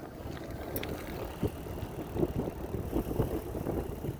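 Wind buffeting the microphone during a bike ride: a low, uneven rumble with gusts.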